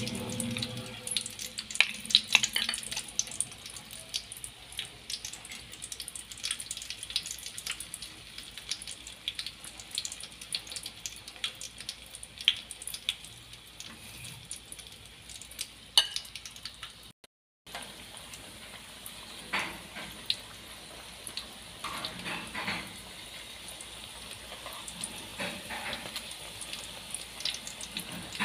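Corn fritter batter deep-frying in hot oil in a metal wok: a steady sizzle peppered with many small crackles and pops.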